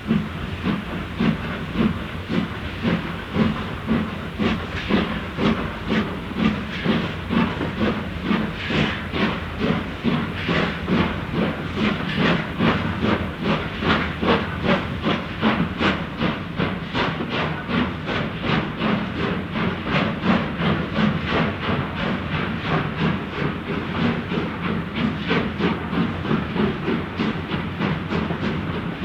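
Steam locomotive working, its exhaust chuffing in a steady rhythm of about two to three beats a second over a constant hiss of steam.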